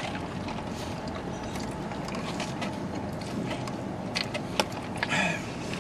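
Eating and drinking sounds inside a car over a steady low hum: scattered small clicks and mouth noises, then a short slurp through a drinking straw about five seconds in.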